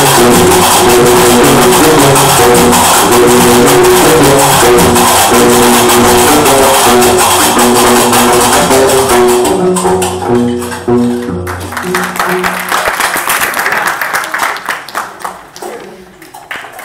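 Live Gnawa diwan music: a plucked bass line under a dense, fast clatter of metal castanets (qarqabou). About ten seconds in the full sound drops away to a sparser, quieter passage of clicks and low notes that fades near the end.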